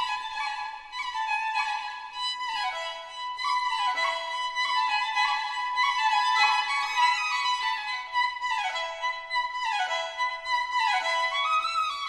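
Background music: a violin melody that moves in repeated falling runs, with no bass.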